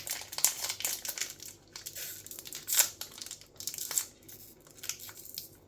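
Foil booster-pack wrapper crinkling and tearing in irregular crackles as it is worked open by hand, with some difficulty getting into it.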